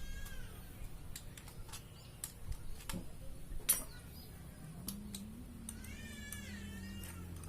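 A cat meowing twice, briefly at the start and a longer wavering meow near the end, among scattered light clicks and taps.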